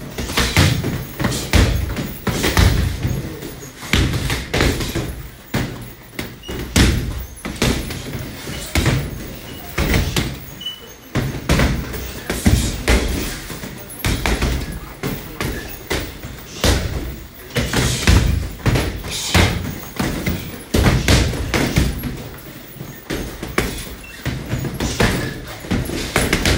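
Gloved punches and kicks landing on a hanging heavy bag: repeated heavy thuds in quick flurries, with short pauses between them.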